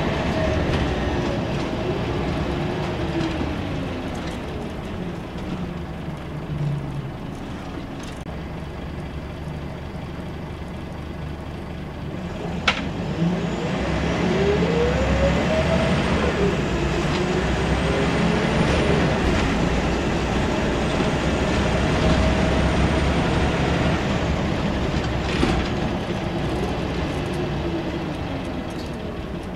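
Scania L94UB single-decker bus with Wright Solar body, heard from inside the passenger cabin while under way: the engine and driveline run with a whine whose pitch slides up and down with speed. It is quieter and lower for a while, then rises as the bus accelerates about halfway through. A single sharp knock comes just before the rise.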